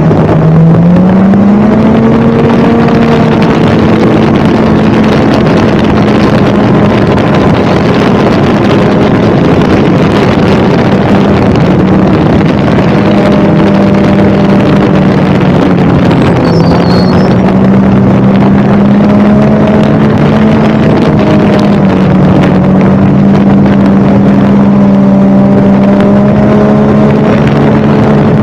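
Snowmobile engine running loud and steady under way. Its pitch climbs about a second in, dips briefly a little past the middle, then rises again and holds.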